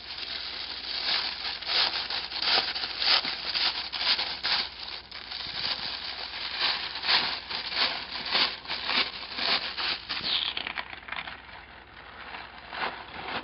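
Sheets of tissue paper rustling and crinkling as they are pulled apart and lifted one by one toward the centre of a puff ball: a quick, irregular run of papery rustles that thins out and grows fainter near the end.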